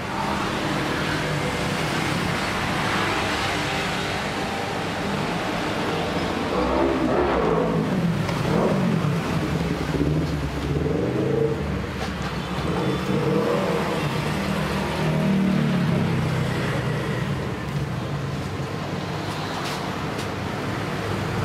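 Road traffic noise: a steady engine hum with a few engines revving and passing.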